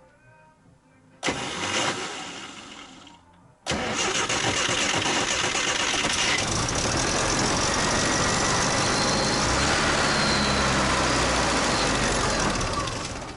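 A UAZ 31512's carburetted petrol engine being started on the starter after its carburettor was primed with petrol by hand. There is one short cranking attempt about a second in, then a longer attempt of about nine seconds that dies away near the end.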